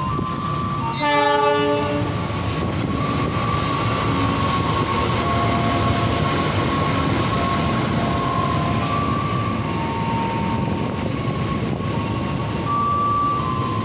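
A CC 206 diesel-electric locomotive sounds a short horn blast about a second in. Then the locomotive and its passenger carriages run past close by with a steady rumble of wheels and engine.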